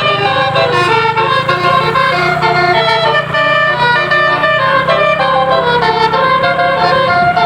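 Bus "basuri" telolet horn, a multi-note horn, playing a melody: loud pitched notes that step up and down without a break, over a steady low hum.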